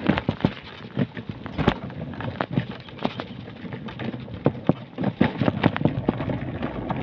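Irregular knocks and scuffs of walking on a concrete sidewalk, mixed with the bumps of the carried microphone being jostled.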